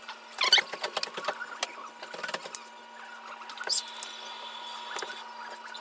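Spice shaker shaken over raw ribeye steaks: a quick run of rattling ticks in the first couple of seconds, then fewer, scattered ticks. A faint steady hum runs underneath, with a higher steady whine for about a second and a half in the middle.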